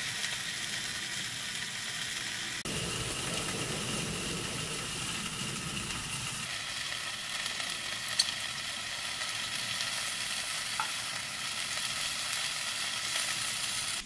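Food frying in a pan: a steady sizzle, with a couple of small clicks.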